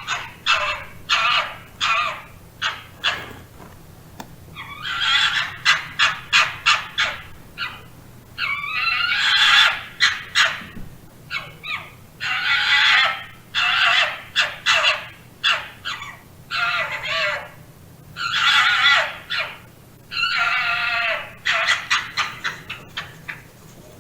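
A fox calling repeatedly: runs of short, quick barks alternating with longer calls about a second long.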